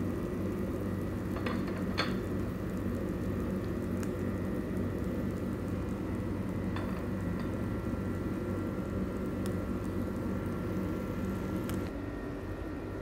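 Steady mechanical hum with a hiss, from a running kitchen appliance, with a few light clicks and taps scattered through it.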